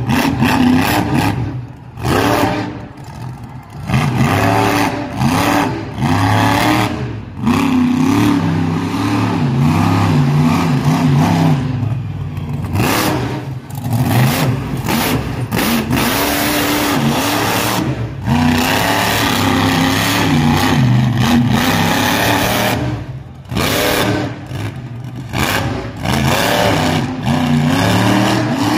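Monster truck engine revving hard over and over, its pitch climbing and falling with each burst of throttle and dropping off briefly between bursts as the truck drives and wheelies.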